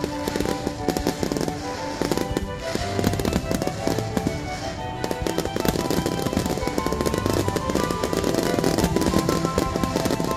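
Fireworks bursting in rapid succession: a dense run of bangs and crackling, with music playing alongside.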